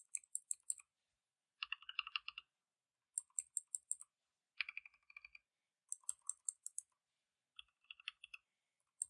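Mechanical keyboard keys pressed in about seven short, quick runs, alternating between two keyboards that sound different: one run brighter and higher, the next lower and duller. One of them is a Keychron C1 with red linear switches.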